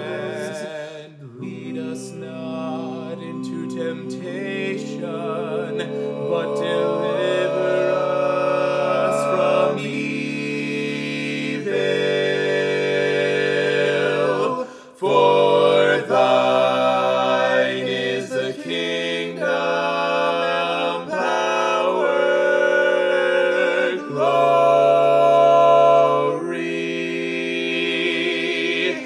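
A cappella vocal harmony: one man's voice layered in four parts, singing long held chords that move from note to note, with a short breath break about halfway through.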